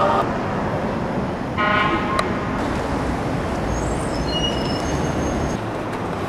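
City street traffic noise, with a short car horn toot about a second and a half in and a few faint high-pitched tones near the middle.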